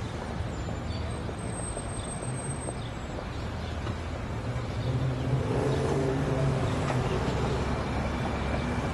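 City street ambience: a steady hum of traffic, with a motor vehicle's engine growing louder a little past halfway through.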